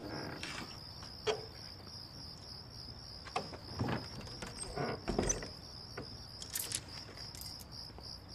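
Crickets chirping steadily in a fast, even pulse, the usual night-time ambience, with a few soft knocks scattered through.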